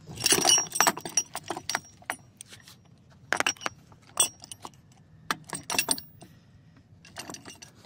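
Metal clinks and rattles of a three-legged gear puller being handled and fitted onto a wheelchair wheel, its loose arms and hooks knocking against each other and the rim. A dense flurry comes in the first second, then scattered clanks.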